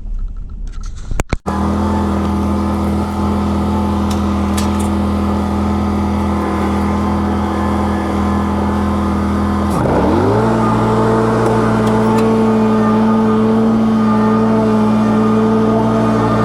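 Lawn mower engine running steadily, beginning abruptly about a second and a half in; about ten seconds in its pitch dips briefly, then climbs and holds higher as the throttle is opened.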